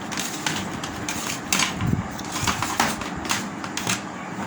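Plastic back cover of an LED TV being pried and lifted off its frame: a run of irregular clicks, snaps and knocks of plastic.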